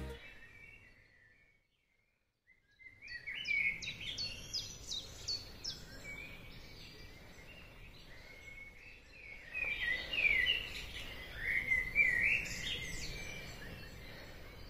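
Songbirds singing: quick runs of short, high chirping notes over a faint low background hum, starting about three seconds in after a moment of silence and busiest again later on.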